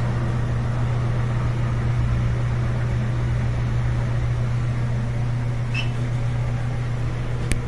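Miele W1215 Touchtronic front-loading washing machine spinning its drum at speed in the final spin of a silk cycle: a steady low hum.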